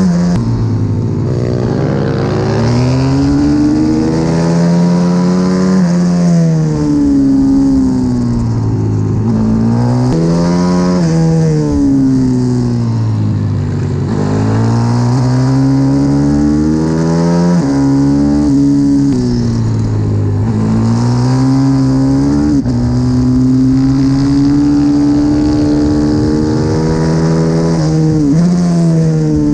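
CW 140 pit bike's single-cylinder four-stroke engine heard onboard at racing speed, the revs climbing and then dropping sharply again and again through gear changes and braking for corners.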